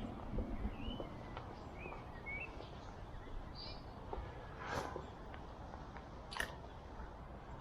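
Outdoor background with a steady low rumble, a few faint bird chirps in the first couple of seconds, and two short rustling swishes near the middle and about two-thirds through.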